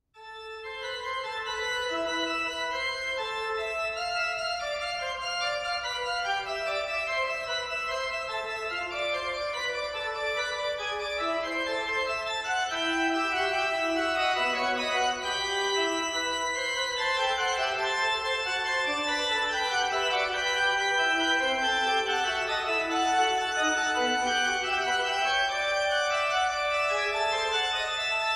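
Organ music: several lines of held notes moving step by step against one another, fading in over the first second.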